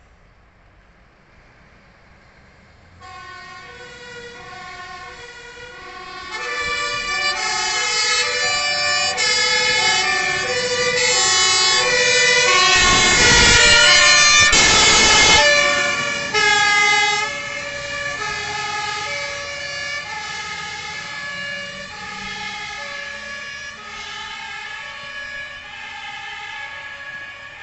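Fire engines' two-tone sirens, alternating between two pitches, starting about three seconds in and growing louder as the Scania aerial ladder truck comes past close by, its passing engine and road noise loudest a little after midway. The sirens then fade steadily as the trucks drive away.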